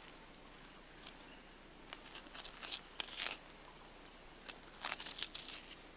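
Faint scattered crackling and tearing as a knife cuts meat and membrane free around a skinned elk's front shoulder blade. The crackles start about two seconds in and come in two short clusters.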